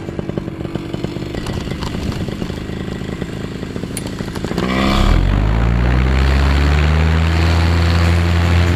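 Paramotor engine running at low throttle with a rapid pulsing, then opened up about halfway through, its pitch sweeping quickly upward to a loud, steady full-power note for the takeoff run.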